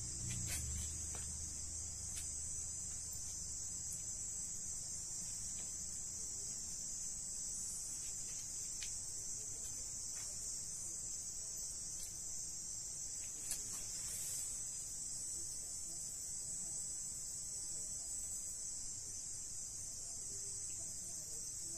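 Crickets trilling steadily in a high continuous chorus, with a few faint short clicks, the clearest about halfway through.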